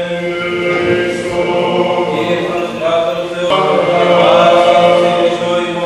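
Greek Orthodox Byzantine chant: voices singing a slow, drawn-out melody over a steady held low note, swelling about four seconds in.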